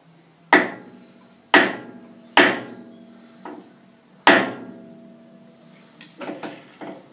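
Four sharp metallic taps on a four-jaw lathe chuck, each leaving a brief ring, nudging a jaw to centre the work to within half a thou. About six seconds in come lighter clicks and knocks as the chuck is turned by hand.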